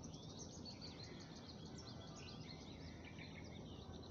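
Faint chirping of small birds, many short calls overlapping throughout, over a low steady background noise.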